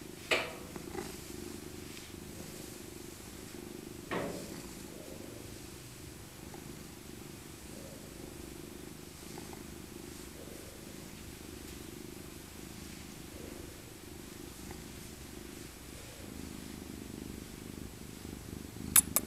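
Old tabby cat purring steadily while being stroked. A short sharp sound comes right at the start and again about four seconds in, and a couple of sharp clicks come near the end.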